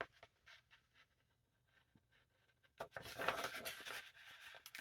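Near silence with a few faint clicks, then, about three seconds in, a stretch of rustling and clicking as small Channellock diagonal cutting pliers are worked to show they still cut sharply.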